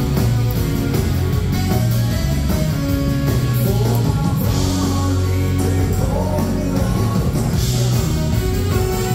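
Live dance-band music, with accordion, saxophone, electric guitar and drums playing together.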